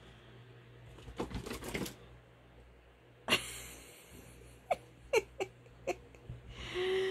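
A gray squirrel scampering over a fleece blanket on a bed, its claws scratching and clicking on the fabric in scattered bursts. There is a cluster of rustling scratches about a second in, a sharp scrape halfway through, then several single clicks, with a short low hum near the end.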